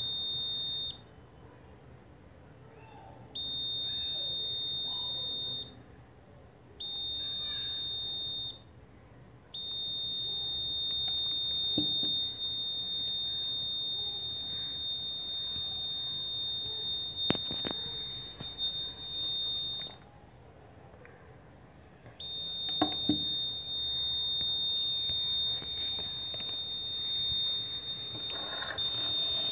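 Electronic buzzer of a laser tripwire alarm giving a steady high-pitched tone that cuts off and starts again four times. It sounds while the laser beam is off the light sensor (LDR) and goes silent while the beam falls on it.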